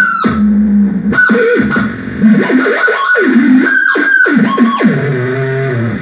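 Handmade analog noise-box synthesizer played by hand, giving out loud, distorted, buzzing electronic tones that waver in pitch, with several quick downward swoops.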